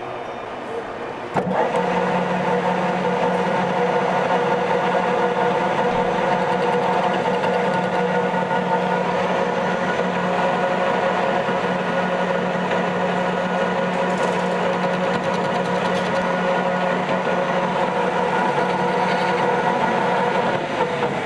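Metal lathe started about a second in, its spindle and gearbox running with a steady hum while a lathe tool faces a flat on the side of a fuel hose fitting held in the chuck; the lathe stops near the end.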